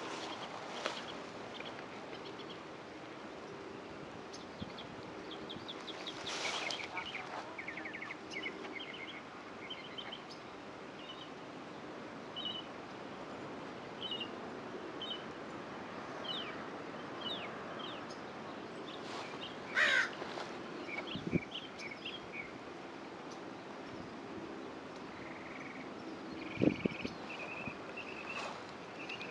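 Birds chirping in short, repeated high notes over a steady outdoor rush, with a few louder calls near the two-thirds mark and near the end.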